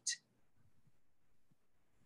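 Near silence: a pause in speech, with only a short breathy hiss from the end of a word at the very start.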